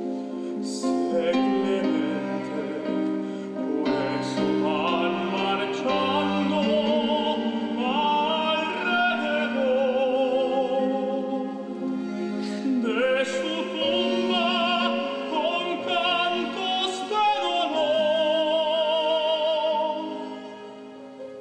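Classical music: an operatic voice sings with a wide vibrato over sustained chords, dipping briefly near the end.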